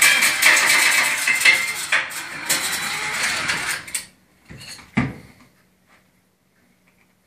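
Flexible chimney-cleaning rod spun by a cordless drill, rattling and scraping against the inside of a steel flue pipe, then stopping about four seconds in. A couple of knocks follow.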